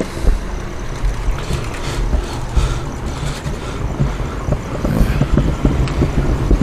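Low rumble of a motor vehicle on the street, with a few short knocks.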